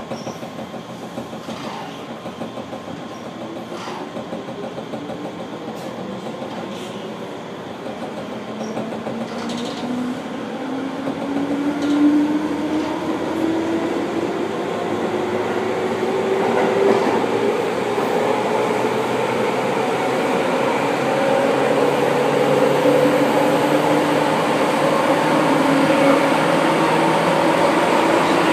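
Electric commuter train accelerating, heard from inside the carriage: the motors' whine rises slowly and steadily in pitch while the running noise grows louder.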